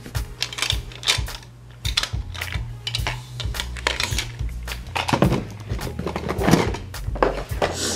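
Rummaging through makeup for an eyeliner: small items clicking and clattering in quick irregular knocks, with bumps and rubbing close to the microphone.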